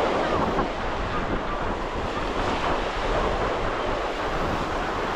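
Ocean surf washing onto a sandy beach in a steady rush, with wind buffeting the microphone.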